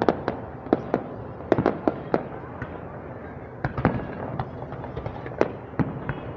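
Fireworks going off in a quick, irregular string of sharp bangs, with a short lull around the middle, over the murmur of crowd chatter.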